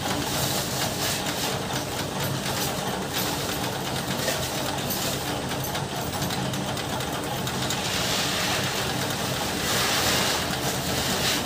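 Dry paddy rice seed rustling and pouring as it is scooped by hand and with a small pot and tipped into a sack, getting louder near the end. A steady low hum runs underneath.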